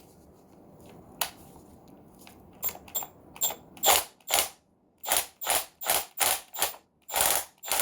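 Milwaukee M12 Fuel right-angle impact wrench run on its lowest speed setting in short trigger blips: a string of brief mechanical whirring bursts, sparse at first, then about two or three a second.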